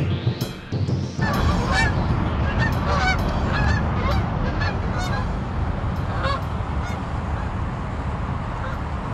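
A flock of geese honking as they fly over: many short calls starting about a second in and thinning out after about six seconds, over a steady low rumble.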